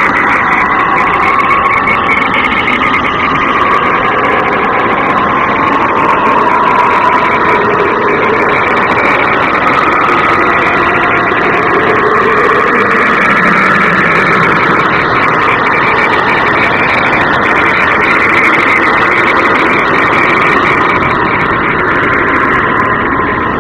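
A continuous droning rumble with slowly shifting hum bands, the kind of ambient 'space sound' presented as the sound of the planet Epsilon Eridani b.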